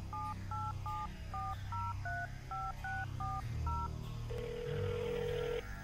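Telephone touch-tone keypad dialing a number: about ten short two-tone beeps in quick succession, then one longer steady tone as the call goes through.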